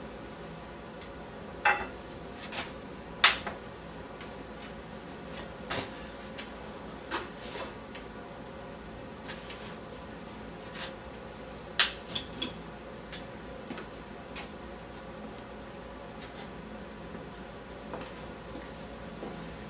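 Handling knocks on a wooden table as a 4-foot fluorescent tube and other gear are set down: scattered sharp clicks and knocks, the loudest about three seconds in and a quick cluster of three around twelve seconds, over a steady hiss with a faint hum.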